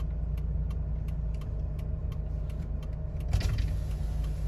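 Car cabin with a steady low engine and road rumble and a car's turn-signal indicator ticking evenly about three times a second; a louder knock comes a little past three seconds in.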